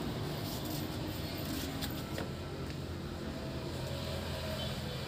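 Steady low rumble of distant road traffic, with a few faint clicks.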